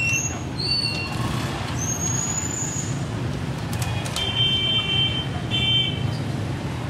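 Steady street traffic running past, with a low rumble, several short high tones and two brief horn-like toots, about four seconds in and again near six seconds.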